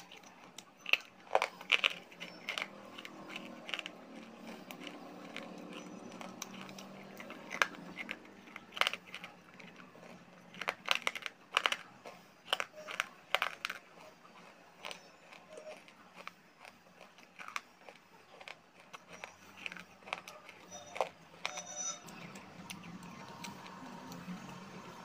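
Close-up biting and crunching of hard, dry lumps of clay (mitti): sharp, irregular crunches in clusters, with quieter chewing between.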